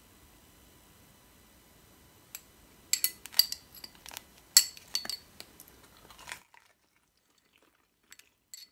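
Metal chopsticks clicking against a small ceramic bowl and sauce dish as a pan-fried bun is picked up and dipped: a single click about two seconds in, then a cluster of sharp clinks from about three to six seconds in, after which it goes almost silent but for two faint clicks near the end.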